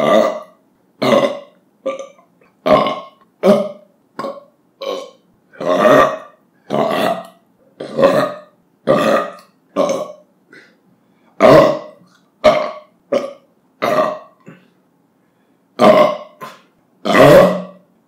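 A man belching after drinking carbonated drinks and beer, one burp after another: about twenty short, separate belches at roughly one a second, some clipped and some drawn out, with a long loud one near the end.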